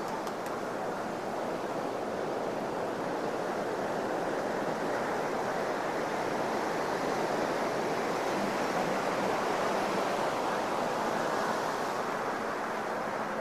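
Ocean surf washing onto a sandy beach: a steady wash that swells a little midway.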